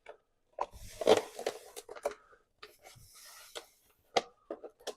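Vinyl decal and its paper backing being handled: irregular rubbing and crinkling, loudest in the first two seconds, with a sharp click about four seconds in.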